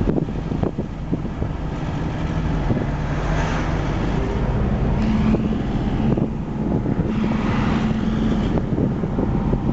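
Engine hum and road noise inside a moving car's cabin. The engine note steps up in pitch about halfway through, and the rush of passing air swells a couple of times.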